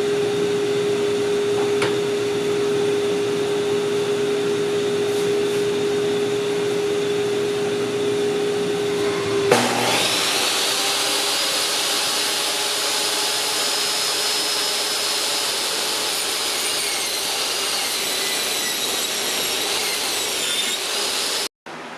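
Kobalt 10-inch 15-amp benchtop table saw running at speed with a steady motor hum. About ten seconds in it starts cutting through a board: a loud rush of cutting noise joins the hum, which drops slightly in pitch under the load. The sound cuts off abruptly near the end.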